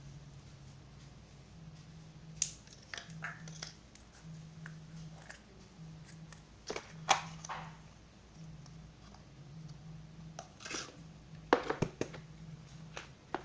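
Slime being worked by hand, giving irregular crackles and pops, with a cluster of sharper ones near the end, over a faint low hum.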